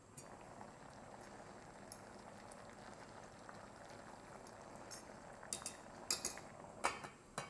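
Stew simmering in an uncovered stainless steel pot, a steady soft bubbling. From about five seconds in come several sharp metal clinks, from the fork and the lid against the pot.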